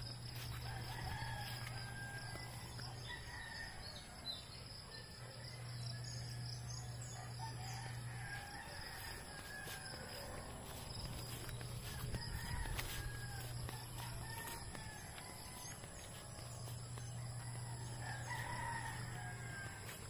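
Roosters crowing with small birds chirping, over an outdoor background. A low hum comes and goes in stretches of a few seconds.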